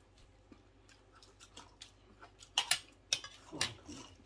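Eating crispy fried chicken wings: soft mouth ticks, then a cluster of sharp crisp crunches and clicks in the second half.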